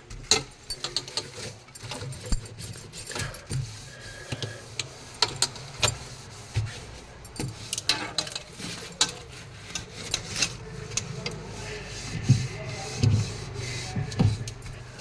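Containers and items being handled in and around a refrigerator: irregular clicks, knocks and rubbing, with a few heavier thumps near the end.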